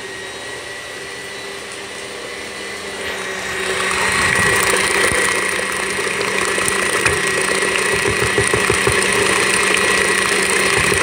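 Electric tilt-head stand mixer running steadily with a motor whine, its beater mixing cream cheese, sugar and vanilla until smooth and free of lumps. Louder from about four seconds in.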